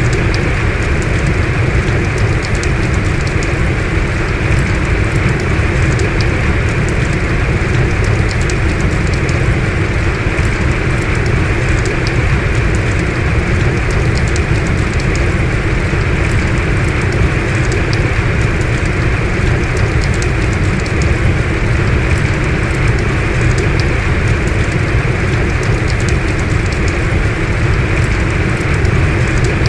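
Heavy rain falling steadily: a dense, even rush of water with scattered drop ticks, unchanging throughout.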